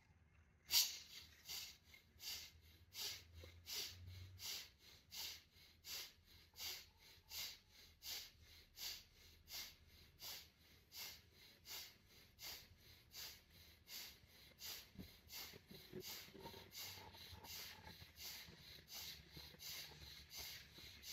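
Rapid, vigorous diaphragmatic breathing in and out through the nose as a pranayama exercise: a steady train of sharp nasal puffs, about two or three a second, kept at an even pace.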